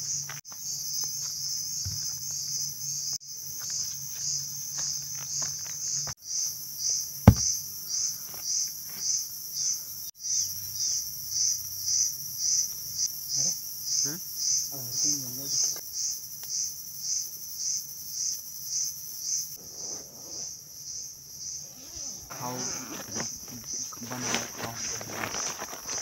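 Insect chorus: a high buzz that pulses about twice a second, with a single sharp knock about seven seconds in.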